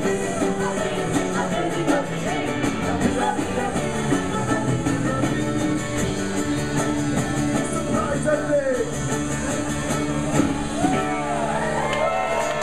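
Live acoustic band playing an upbeat children's song: strummed acoustic guitar and fiddle over a steady beat, with voices rising near the end.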